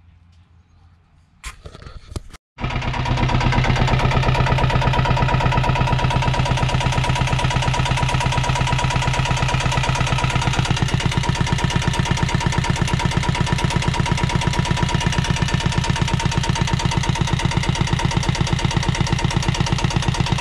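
Bukh DV10 single-cylinder marine diesel running at a steady idle with a rapid, even chug, warming up before its oil service. It comes in abruptly after a short noise about two seconds in.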